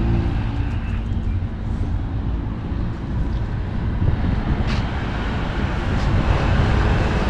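Outdoor street noise: a steady low rumble of wind on the microphone mixed with passing road traffic.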